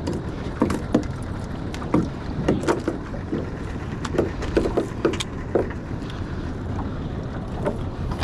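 Irregular slaps and knocks on the hull and deck of a small fiberglass panga drifting at sea, over a steady low rumble of wind and water.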